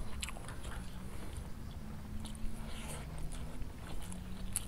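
Close-up chewing of a handful of rice and smashed fried tempeh, with small, scattered wet mouth clicks.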